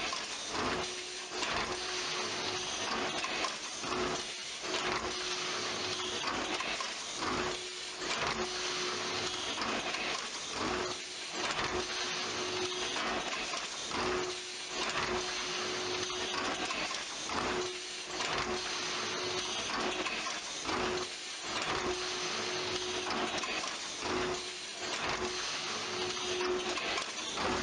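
Big-bag packing machine and high-level palletizer line running: a steady mechanical whir with a hum that cuts in and out every second or two.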